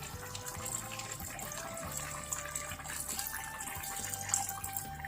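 Half a cup of water being poured into a pan of simmering curry, a steady watery pouring sound.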